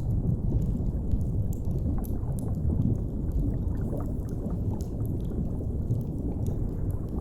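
Steady low underwater rumble of deep-sea ambience, with scattered faint crackles from a fire.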